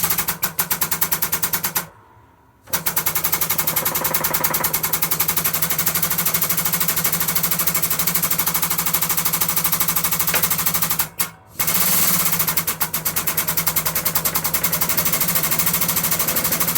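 Air-powered press running in a rapid, even train of rattling pulses, pressing an HK 3020 needle roller bearing into the bore of a lathe's drive clutch basket. It stops briefly twice, about two seconds in and again near eleven seconds.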